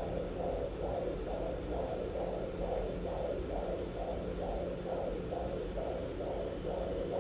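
Fetal heartbeat played through a Sonoline B handheld fetal Doppler's speaker: an even pulse a little over two beats a second, about 130 a minute, over a steady hum. The fast rate marks it as the baby's heartbeat, not the mother's.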